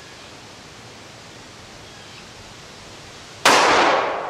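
A single .45 ACP pistol shot from a Colt 1911 Government Model, Series 80, firing a 230 grain Federal HST hollow point into a ballistic test block, about three and a half seconds in. It is sudden and very loud, and rings out as it fades. Before it there is only a faint steady outdoor hiss.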